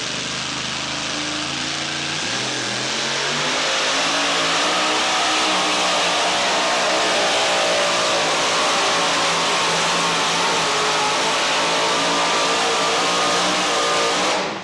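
Pulling tractor's engine revving up from idle about two seconds in, then running at high, steady revs under full load as it drags a weight-transfer sled down the track. The sound cuts off suddenly near the end.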